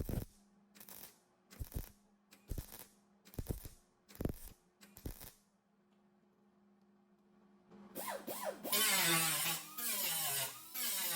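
A series of about seven short, sharp sounds roughly a second apart over a faint steady hum, then, after a short pause, an angle grinder starts about eight seconds in and runs loudly, its pitch wavering as it bites into the weld on a car body panel.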